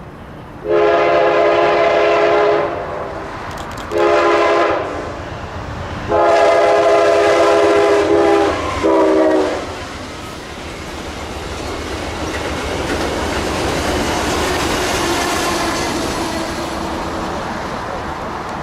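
Norfolk Southern freight train's locomotive horn sounding four blasts, long, short, long, short. After the horn the rumble and clatter of wheels on rail builds up and holds loud as the train passes.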